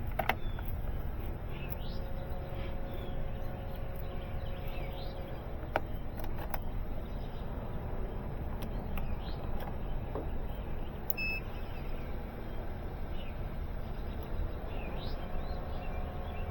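Outdoor background: a steady low rumble with faint, scattered bird chirps and a few light clicks.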